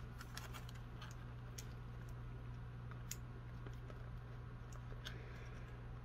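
Faint, scattered clicks and taps of a plastic action figure and its plastic stand being handled while the figure is pushed onto the stand's pegs, over a steady low hum.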